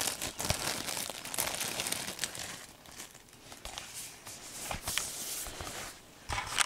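Clear plastic shrink wrap crinkling and tearing as it is pulled off a cardboard Blu-ray box set, with a few sharp clicks from the box being handled; quieter around the middle.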